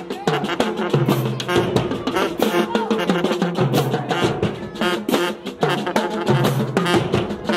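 Marching band playing: brass horns and sousaphones over a drum line, with a low bass figure repeating about every second and a quarter under steady drum hits.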